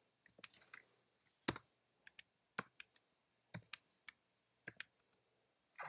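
Keystrokes on a computer keyboard: about a dozen separate key clicks, irregularly spaced with short pauses between them.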